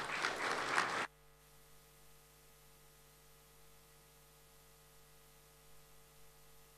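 Audience applause that cuts off abruptly about a second in, leaving a faint steady mains hum from the sound system.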